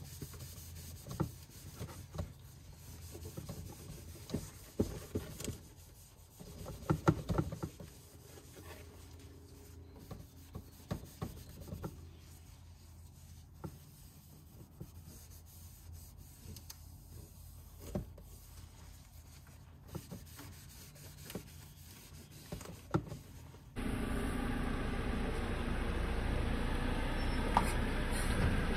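Irregular light knocks, clicks and rubbing, like parts being handled, over a low hum; near the end it cuts abruptly to a steady, louder noise.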